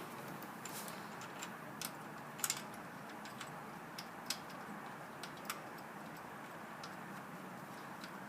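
Scattered light clicks and taps of a starter mounting bolt and tools being handled while the starter motor is refitted, over a steady low hiss. The loudest is a quick double click a little past two seconds in.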